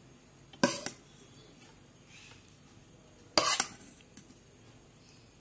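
Metal spoon clanking against a metal cooking pot twice, about three seconds apart, as food is scooped and stirred.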